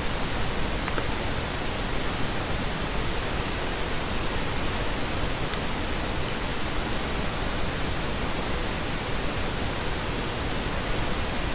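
Steady, even hiss with no other sound: the recording's background noise, with no voice or mechanism heard.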